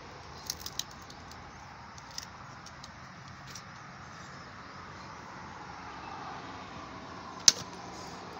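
Light knocks of split firewood pieces being handled and set on a chopping log, then one sharp, loud axe blow into the wood near the end.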